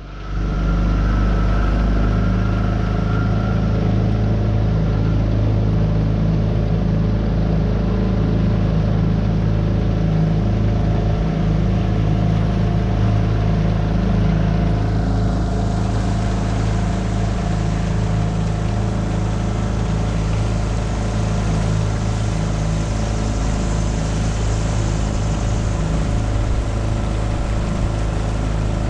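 Tohatsu 9.8 hp four-stroke outboard opened up at the start, then running steadily under way.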